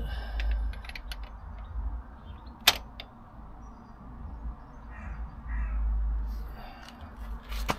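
Torque wrench set to 70 newton metres tightening a motorcycle's rear axle nut, giving one sharp click a little under three seconds in, the sign that the set torque has been reached, over a low rumble.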